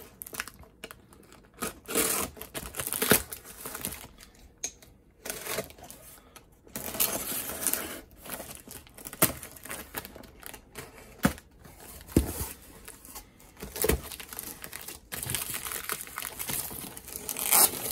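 A utility knife slitting packing tape on a cardboard shipping box, with tape and paper tearing and cardboard flaps rustling. The rasps come in irregular bursts, with a few sharp clicks among them.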